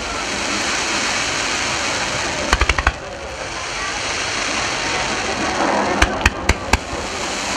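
Star mine firework shells bursting in quick strings of sharp bangs: about five in rapid succession a little over two seconds in, then four more spread over under a second near the end, over a steady background din.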